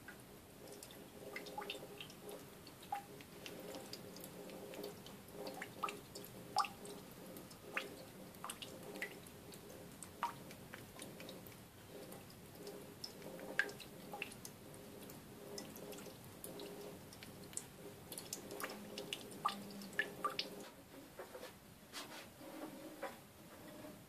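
Water dripping and trickling from a kitchen tap into a stainless-steel sink, many small irregular drips and splashes as a kitten paws at the water in a bowl, over a faint steady hum.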